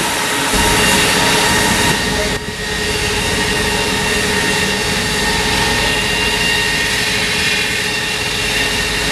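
Wire saw cutting through a steel pile, the wire running over its guide pulleys: a loud, steady grinding hiss with several steady whining tones, briefly dipping about two and a half seconds in.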